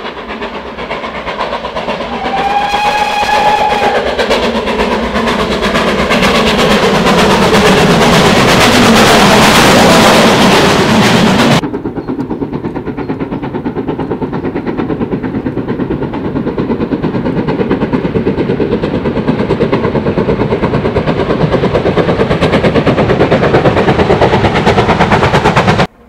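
A steam locomotive approaches and passes, giving a short whistle about three seconds in and getting loudest around ten seconds. The sound then cuts suddenly to another steam locomotive working hard with a train, its exhaust beating in a rapid, even rhythm.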